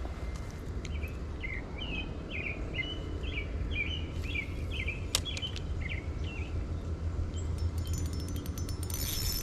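A songbird singing a quick run of repeated warbling notes for about five seconds, over a steady low rumble. A single sharp click comes about five seconds in, and rapid high-pitched ticking starts near the end.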